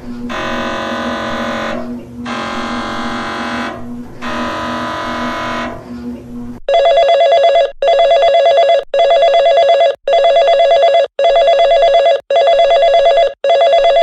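Emergency Alert System test alert tones. A buzzy tone sounds three times, each for about two seconds. Then, about six and a half seconds in, a louder and higher two-note tone takes over, pulsing on and off about once a second.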